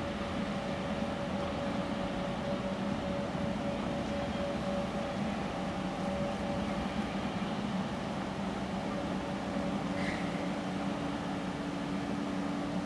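ChME3 shunting locomotive's six-cylinder diesel engine running steadily as it hauls a freight train away, a constant hum with a second steady tone joining about nine seconds in.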